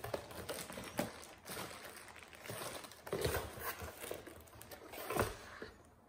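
Cardboard keyboard box being handled and opened: several dull knocks as it is tipped and set against the table, with cardboard scraping and plastic wrap rustling in between. The loudest knock comes near the end.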